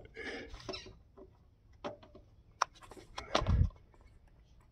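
Light clicks and taps from a copper refrigerant line and its brass flare nut being handled against a mini-split's brass service valve. There is a brief rustle at the start and a louder dull thump about three and a half seconds in.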